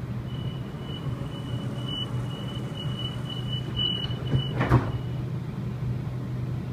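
Waratah train's sliding saloon doors closing: a high-pitched door warning tone beeps repeatedly for about five seconds, and the doors meet with a thud near the end of the beeping. A steady low hum of the carriage runs underneath.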